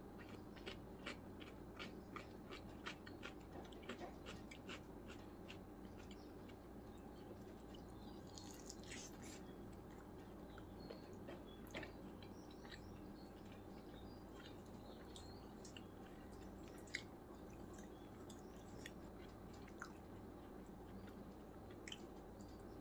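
Eating chicken biryani by hand: fingers picking and tearing at fried chicken drumsticks with faint clicks and crackles, and biting and chewing, over a steady low hum. One sharper click comes near the end.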